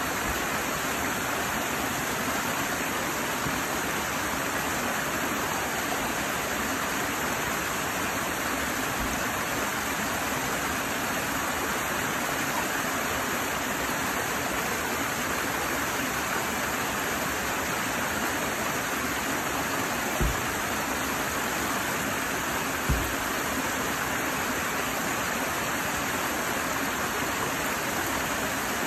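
Small mountain stream splashing steadily down a cascade of boulders into a shallow pool, a constant rush of water. Two brief low thumps a couple of seconds apart, about two-thirds of the way through.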